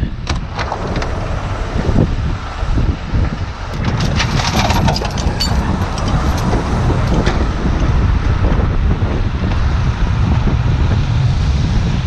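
Strong wind buffeting the microphone over the steady rumble of a heavy truck, with a few clicks and knocks near the start and again about four to five seconds in.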